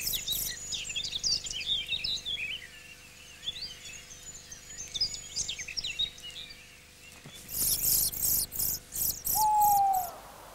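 Mistle thrush nestlings begging at the nest as the parent arrives with food: a run of thin, squeaky calls, then loud rasping bursts from about seven seconds in. Near the end an owl gives a single falling hoot.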